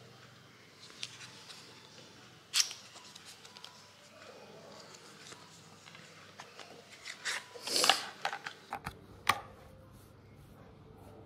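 Hands handling and opening a small cardboard lipstick box: light taps and clicks, a sharp snap about two and a half seconds in, then a cluster of scraping and rustling around eight seconds in as the lipstick tube is pulled out, and one more sharp click soon after.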